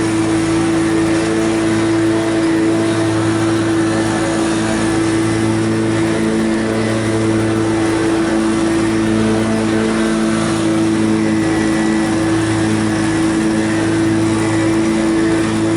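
Exmark Turf Tracer 52-inch walk-behind mower running steadily while cutting grass, its engine and blades giving an unbroken hum with a strong steady tone.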